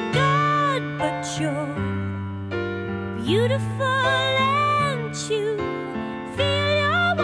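Slow music: a high melody that glides and wavers, held over sustained keyboard chords and a steady bass note.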